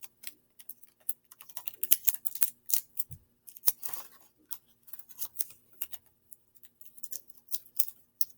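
Paper and sticky tape being handled while paper eyes are taped onto a craft: irregular sharp clicks and short crinkles, with one longer rustle about four seconds in.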